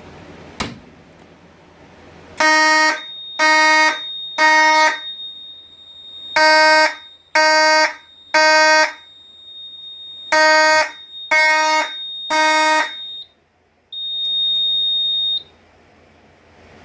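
Fire alarm horn sounding the temporal-three evacuation pattern: three groups of three short blasts, each group followed by a pause. A thin, high steady beep runs under the blasts and sounds once more on its own for about a second and a half after the horn stops.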